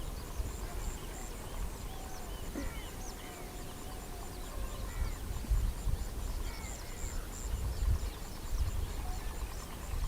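Birds chirping in short rising-and-falling calls, over a high chirp that repeats at an even pace and a low rumble that swells now and then.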